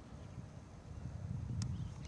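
Uneven low rumble on the camera microphone, swelling about a second in, with one sharp click near the end and faint high chirps in the background.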